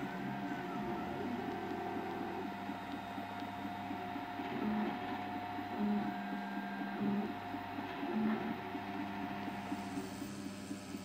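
Prusa i3 3D printer running a print: its stepper motors whine in short notes that jump from pitch to pitch as the print head moves, over a steady hum that runs underneath.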